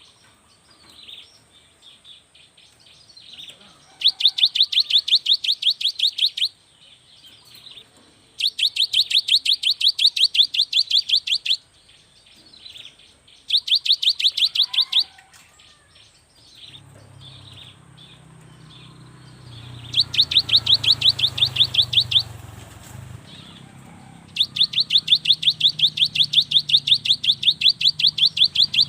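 Gelatik batu (cinereous tit) singing in loud bouts of fast, evenly repeated high notes, each bout lasting two to three seconds, five times over, with softer scattered chirps in between. A low hum joins in past the middle.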